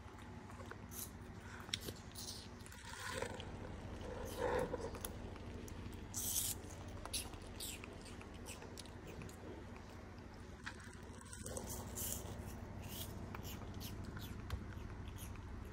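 Baby macaque eating soft fruit: scattered wet mouth clicks and smacks from biting and chewing, over a steady low hum.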